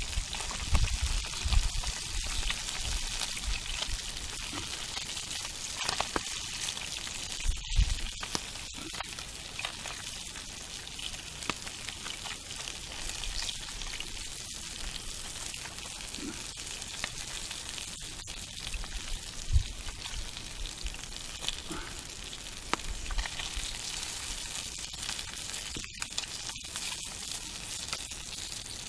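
Pieces of fish frying in bubbling oil in a skillet: a steady sizzle, with scattered small clicks and pops.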